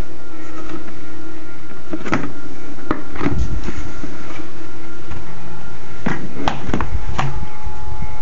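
A machine running with a steady hum of several constant tones. Sharp clicks and knocks come now and then, a cluster about two to three seconds in and another about six to seven seconds in.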